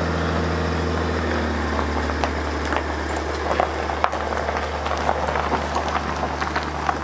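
A 2020 Chevy Silverado 1500's 3.0-litre Duramax inline-six turbodiesel runs with a steady low hum as the truck slowly tows a boat trailer. From about two seconds in, tyres crackle and snap over dry leaves and twigs.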